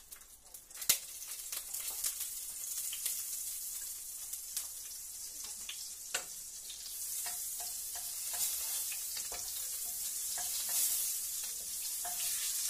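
Margarine sizzling as it melts in a hot pot, stirred with a wooden spatula: a steady high hiss that grows louder about halfway through, with scattered clicks and scrapes of the spatula against the pot. A sharp knock about a second in is the loudest sound.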